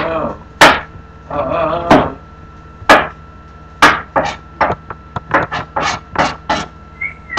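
Knife chopping food on a cutting board: sharp separate strikes, about one a second at first, then quicker, about three a second, from about four seconds in.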